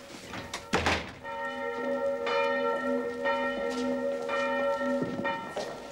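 A thump, then a church bell tolling, struck about once a second for five strikes, its ringing carrying on between strikes.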